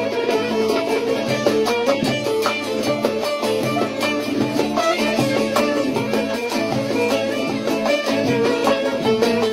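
Bağlama (Turkish long-necked saz) played solo in a fast run of picked notes, the instrumental break between sung verses of a Turkish folk song.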